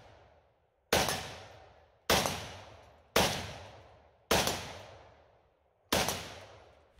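A 3D-printed CETME-style .308 battle rifle fired five times in single aimed shots, roughly a second apart with a slightly longer pause before the last. Each sharp report dies away over about half a second.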